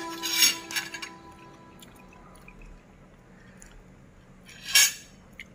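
Soft guitar background music fading out in the first second, then quiet with a few light ticks, and one sharp clink of metal cutlery against a dinner plate near the end.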